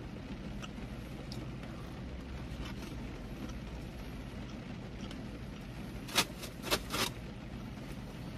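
Steady low rumble of a car cabin, with a few short sharp crackles and clicks about six to seven seconds in.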